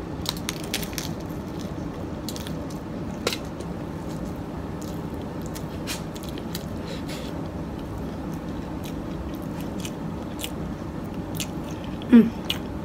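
Close-up eating of a soft flour-tortilla chicken taco: a bite, then chewing with scattered wet mouth clicks and smacks over a steady low background hum. A brief voice sound near the end.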